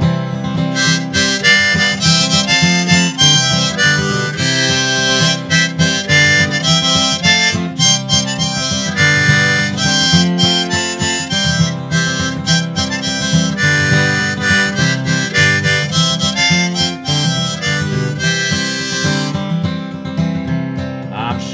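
Harmonica in a neck rack playing the tune's melody over a strummed acoustic guitar, an instrumental break; the harmonica drops out near the end, leaving the guitar.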